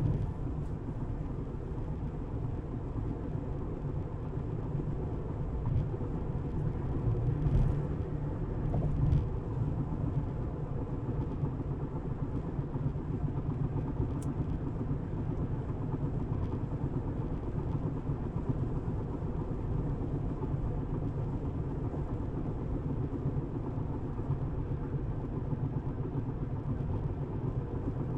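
Steady low rumble of tyre and road noise from a Tesla electric car driving along, with a couple of slightly louder bumps about eight to nine seconds in.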